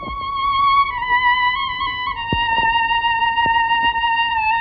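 Film background score: a single high melody line held in long, smooth notes that step slowly down in pitch, with a few faint clicks.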